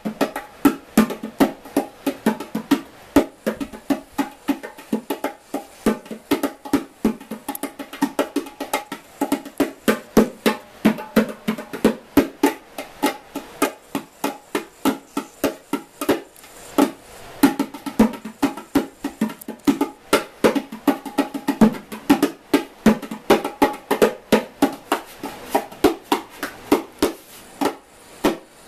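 A pair of bongos played with bare hands: a continuous, quick rhythm of strokes and slaps on the two drumheads, several hits a second, each with a short ringing tone.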